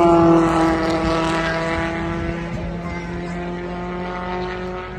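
Porsche 911 GT3 Cup race car going past at speed on the circuit, loudest at the start, its engine note dropping slightly in pitch as it moves away and fades.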